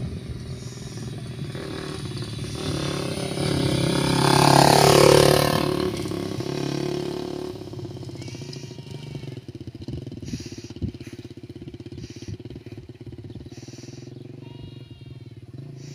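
Small trail motorcycle riding past: its engine grows louder, is loudest about five seconds in with the note dropping as it goes by, then fades steadily as it pulls away.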